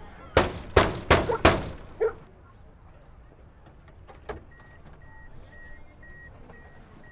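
Knocking on a wooden gate: four quick knocks and a fifth a moment later. A few seconds in, a car door unlatches and the taxi's door-open warning chime starts beeping, about twice a second.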